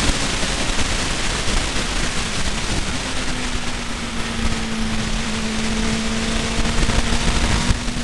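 Car driving at speed on a race circuit: a steady engine note under heavy wind and road noise.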